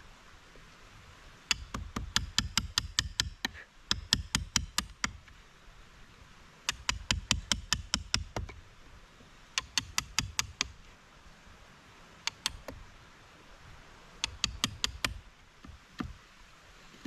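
Bursts of rapid knocking strikes, about six a second, each burst lasting one to two seconds, with short pauses between bursts and a brief pair of knocks partway through.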